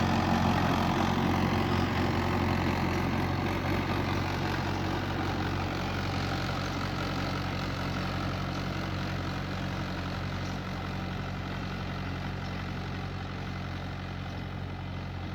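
Mahindra 475 DI tractor's four-cylinder diesel engine running at a steady speed, gradually growing quieter.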